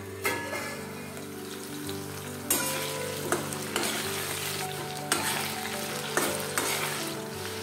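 Potato pieces and cumin seeds sizzling in hot oil in a stainless-steel wok, while a metal spatula stirs them, clinking and scraping against the pan several times.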